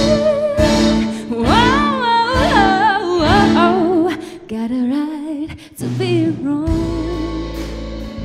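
A female singer sings a soulful line with ornamented runs, accompanied by a string orchestra of cellos and violins. The accompaniment thins to a brief lull about halfway through, then the voice and strings come back in.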